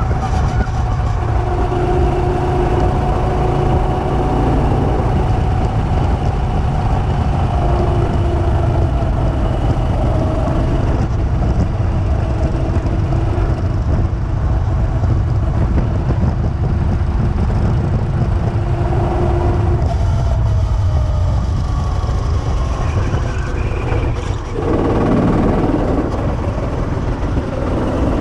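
Two-seater go-kart running at speed around the track: a steady mechanical drone over low wind rush on the microphone. About 24 seconds in the drone dips briefly, then climbs again as the kart picks up speed.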